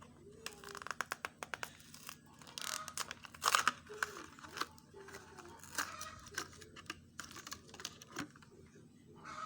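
Hot Wheels toy car packaging being torn and crinkled open by hand, a run of sharp crackles and clicks with louder rustling bursts about a second in and again around three and a half seconds in.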